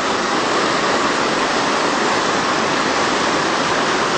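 Rain-swollen river rapids rushing over rocks: a steady, loud whitewater noise without a break.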